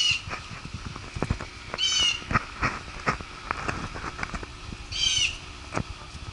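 Chickens giving short, high squawking calls, three times, each dropping in pitch at the end, over a scatter of irregular light taps and clicks.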